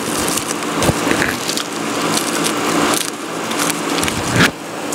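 Dry sunflower seed heads crackling and rustling as they are rubbed by hand to work the seeds loose, with a few sharper snaps.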